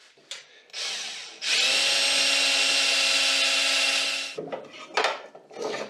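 Cordless drill running steadily for about three seconds as it bores or drives a screw into the solar panel's metal frame, followed by a few light clicks and taps.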